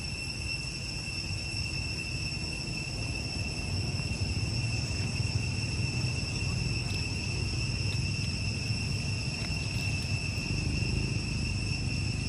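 Insects droning steadily, one unbroken high-pitched whine, over a low outdoor rumble.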